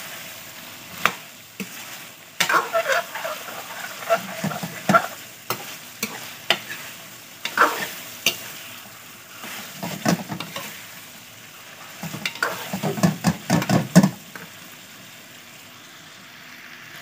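A steel ladle scraping and knocking against a metal pot as chicken and potato pieces are stirred and fried in masala, over a soft sizzle. The stirring comes in spells and dies down for the last couple of seconds.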